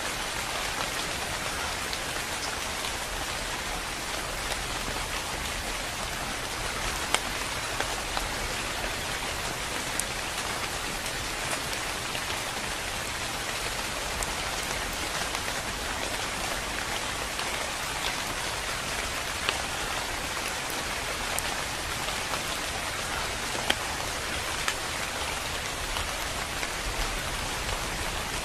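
Steady rain falling on leaves, an even hiss with a few louder single drops landing close by now and then.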